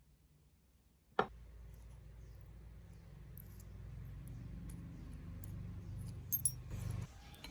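A sharp click about a second in, then a low steady hum with small metallic clicks and clinks over it, the clinks growing busier near the end.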